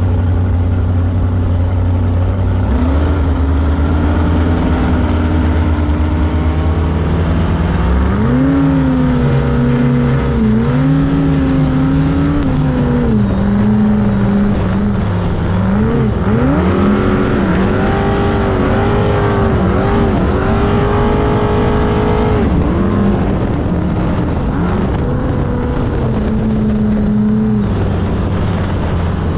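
Big-block Chevy 468 cubic inch V8 of a V-drive Sanger hot boat running underway, its pitch rising and falling with the throttle: it climbs about eight seconds in, dips and climbs again around the middle, and drops back lower near the end. A steady rush of wind and water runs underneath.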